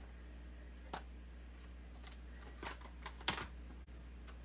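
A few short clicks and rustles of clear plastic stamps and their backing sheet being handled, the loudest about three seconds in, over a low steady hum.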